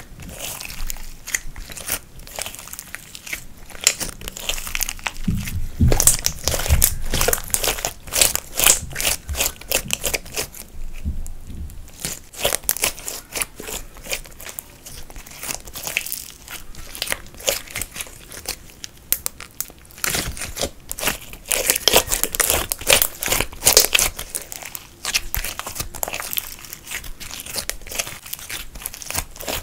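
Glossy glitter slime being kneaded, folded and squeezed by hand, giving a dense run of sticky clicks and crackles, briefly quieter about eleven seconds in.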